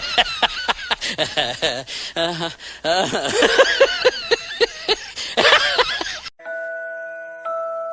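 A comedic sound-effect clip of rapid, high-pitched chattering voices with snickering laughs, which cuts off abruptly about six seconds in. A bell-like mallet tune, glockenspiel or chimes, then begins.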